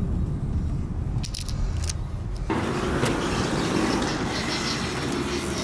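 Car interior road noise, a steady low rumble, with a few light clicks about a second in. About two and a half seconds in it cuts abruptly to a steady hiss.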